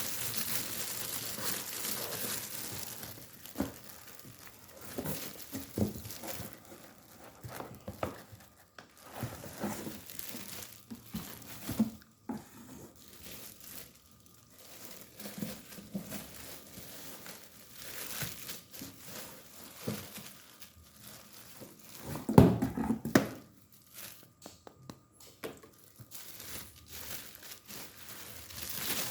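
Packaging being unwrapped: crinkling, rustling and tearing, with a steady rustle at first and then scattered handling knocks, the loudest a thump about three quarters of the way through.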